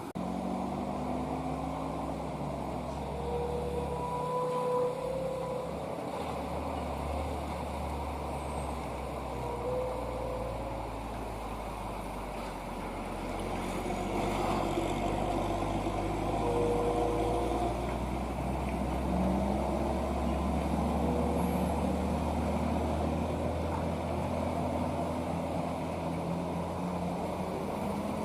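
Heavy truck engines running on the road, growing louder about halfway through as a truck comes closer.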